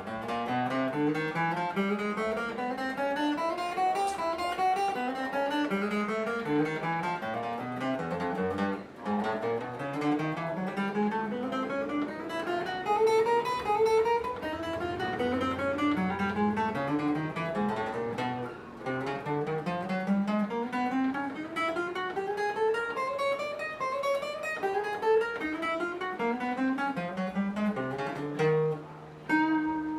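Copy Taylor 314ce steel-string acoustic guitar playing single-note runs fret by fret up the neck, one climbing run after another, to check for fret buzz. The notes ring cleanly with no fret buzz, even with the strings tuned down a half step.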